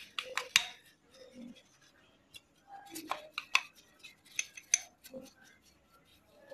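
Irregular sharp metallic clicks and clinks from small metal parts and a motorcycle alloy wheel hub being handled. The loudest cluster comes right at the start, and more clicks are scattered through the rest.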